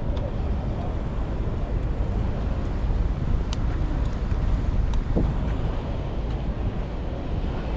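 Steady low rumble of outdoor city street ambience, with a few faint clicks and a brief squeak about five seconds in.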